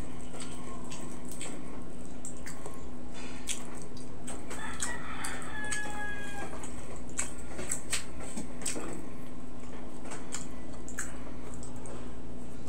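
A rooster crowing once in the background, about four and a half seconds in and lasting about two seconds, over short clicks and crackles of fried tilapia being torn apart by hand, with a steady low hum throughout.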